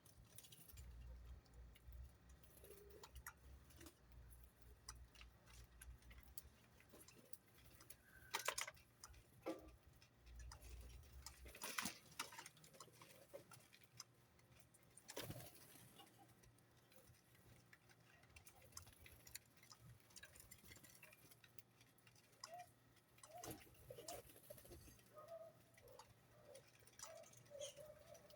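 Mostly quiet, with scattered faint clicks and taps, a few sharper ones about 8, 12 and 15 seconds in. Pigeons begin cooing softly in the last few seconds.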